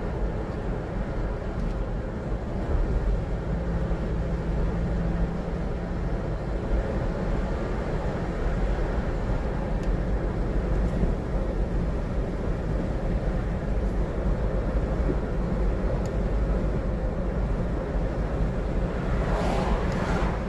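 Steady road and engine noise of a car driving on a paved road, heard from inside the cabin. A swell of noise near the end as oncoming traffic goes past.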